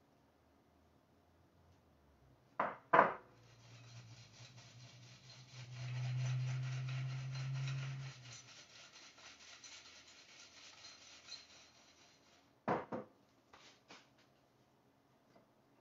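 Seasoned fries being tossed and shaken around in a bowl, a rustling, rubbing rattle that lasts about nine seconds. A couple of sharp knocks come just before it starts and a few more after it stops.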